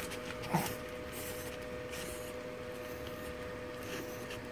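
Soft rustling of a dog's fur and harness brushing close against a phone's microphone, over a steady electrical hum, with one brief short sound about half a second in.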